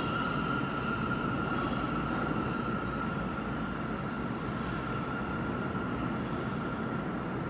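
New York City subway train pulling out and receding into the tunnel: a steady high-pitched wheel squeal over a low rumble that slowly fades.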